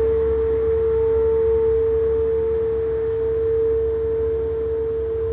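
Big truck running close by: a loud steady drone holding one pitch, with a fainter higher overtone, over a low engine rumble.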